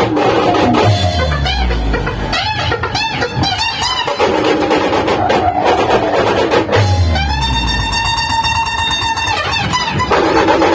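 Dhumal band music over a loud sound system: fast drum and percussion strokes with plucked string melody. A deep bass swoop falls twice, about a second in and again about seven seconds in, the second followed by a held keyboard-like chord for about three seconds.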